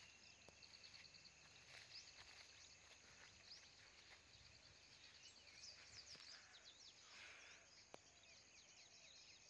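Near silence outdoors, with faint bird chirps scattered throughout, thickest about five to seven seconds in, and a single faint click near the end.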